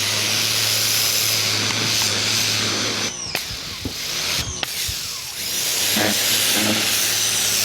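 Ryobi 2000 PSI electric pressure washer spraying a fence: a steady electric motor hum under the hiss of the high-pressure water jet. The spray breaks off briefly about three seconds in and again about a second and a half later, and the motor hum comes back strong near the end.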